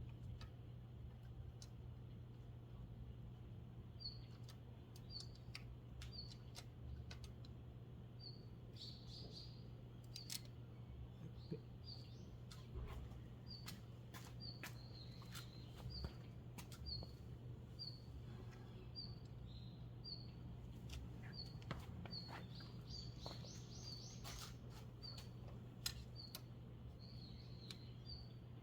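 A small bird chirping over and over, short high chirps about once a second, over a steady low hum with scattered light clicks and taps.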